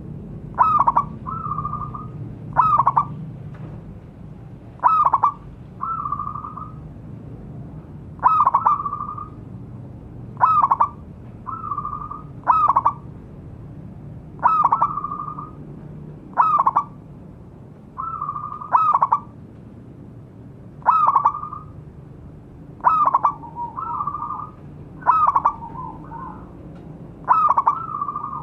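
Zebra dove (perkutut) calling over and over, about one phrase every two seconds: each phrase is a few quick, sharp rising notes followed by a held cooing note.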